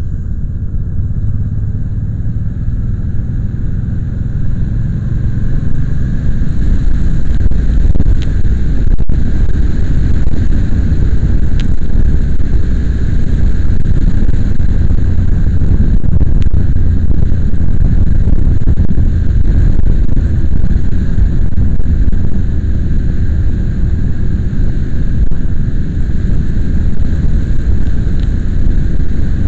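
Loud wind and road rumble on a moving vehicle's mounted camera microphone, with the vehicle's running heard under it. It gets louder about five seconds in and then holds steady.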